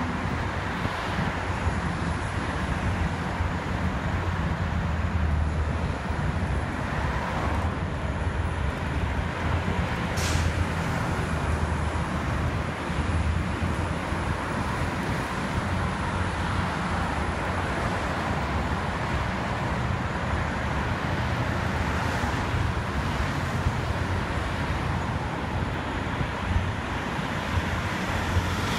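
Road traffic on a city street: a steady rumble of car and truck engines and tyres, with a few vehicles swelling louder as they pass close by, and a box truck approaching near the end.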